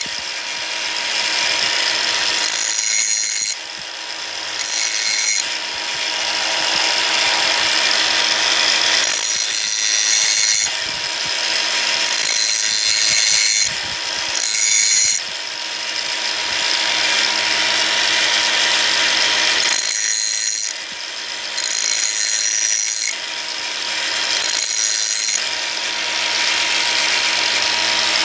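Electric grinding wheel running steadily while a drill bit is ground on it in repeated passes. A rasping grind comes and goes every few seconds, with short breaks where only the motor's steady hum is left.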